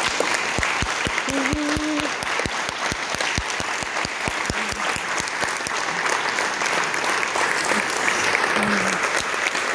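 Audience applauding steadily, with a few claps close at hand and brief voices mixed in.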